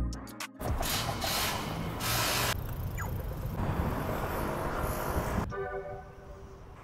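City street traffic noise: a dense, even rush of passing vehicles that cuts off suddenly about five and a half seconds in. Soft background music with held notes follows.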